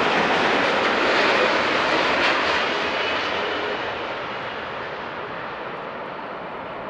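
Jet noise from a low Boeing 787-9 airliner on landing approach, its engines at approach power: a broad rushing sound with a faint high whine, loudest in the first two or three seconds, then fading steadily as the aircraft flies away from the listener.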